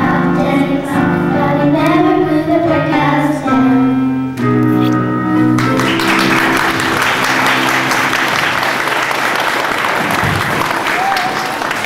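A song sung by a group of voices ends on a held final note, and about six seconds in an audience breaks into steady applause.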